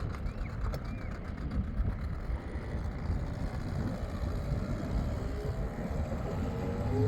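Small boat's motor running under way with a rough low rumble, its pitch rising near the end as it speeds up.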